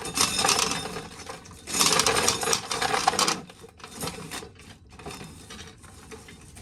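Dried corn being shelled, the kernels rattling off the cob and dropping into a bucket in bursts: the loudest stretch is near the start and around two to three seconds in, with weaker rattles after.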